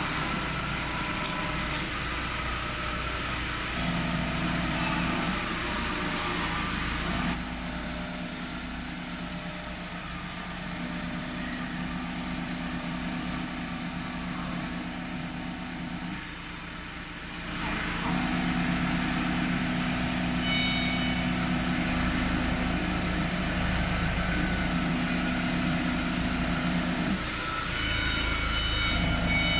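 AKG6090 CNC router running a test program with its rotary axis: motors hum steadily as the axes move, in steps that start and stop. From about seven seconds in a loud, high-pitched whine joins for about ten seconds, then cuts off suddenly.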